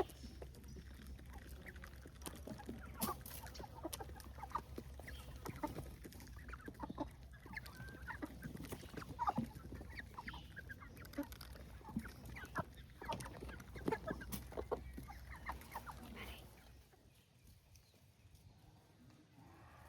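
Domestic hens clucking in many short calls while being fed, over a low steady rumble. About 16 seconds in, the clucking and the rumble stop together and it goes much quieter.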